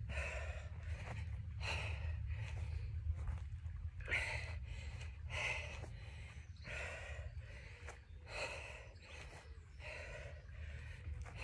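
A woman breathing hard from the exertion of lunges: quick, audible breaths about once a second, over a steady low rumble.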